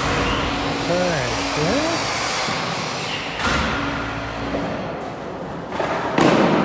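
Construction-site noise: a steady hiss and drone, like power tools running, with a short rising-and-falling call from a voice about a second in. A louder burst of noise comes near the end.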